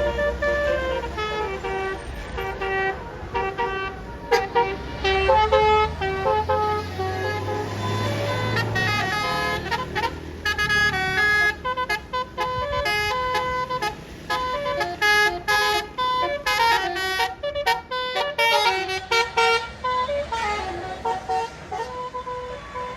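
Basuri telolet bus horn, a multi-trumpet musical horn, playing a continuous melody of quickly changing notes that grows faster and choppier about halfway through. A low engine rumble runs under the tune for roughly the first nine seconds, then fades.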